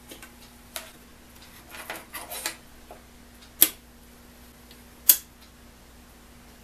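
Hands handling the opened Schauer battery charger with small rattles and clicks, then two sharp clicks about a second and a half apart, the loudest sounds, as the charger's range toggle switch is snapped. A faint steady hum runs underneath.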